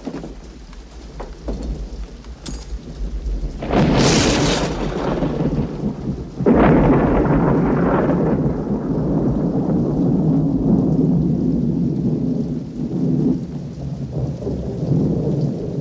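Thunderstorm: a sudden thunderclap about four seconds in, then a second, longer peal of thunder from about six and a half seconds that rolls and slowly fades, over steady rain.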